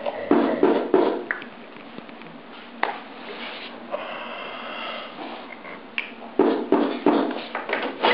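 Irregular knocks, taps and bumps from someone handling things at a desk and moving about in a small room: a cluster near the start, a single sharp click about three seconds in, and another run of knocks near the end.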